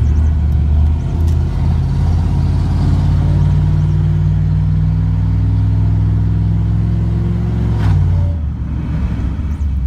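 A pickup truck's engine heard from inside the cab, accelerating through the gears of a newly installed automatic transmission. The engine note rises steadily, then drops about eight seconds in as the transmission shifts up.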